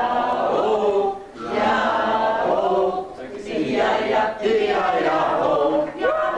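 Several voices singing together in phrases, with short breaks about a second in, about three seconds in and near the end.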